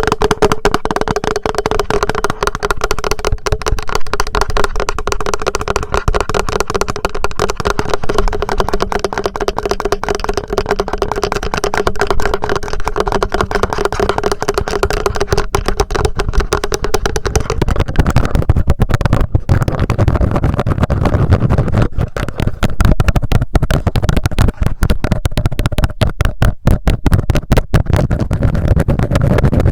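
Rapid fingertip tapping and scratching directly on a TASCAM handheld recorder, picked up close by its own microphones as a dense stream of quick clicks. A steady ringing tone under the taps fades out about two-thirds of the way through, and the tapping then turns deeper and heavier.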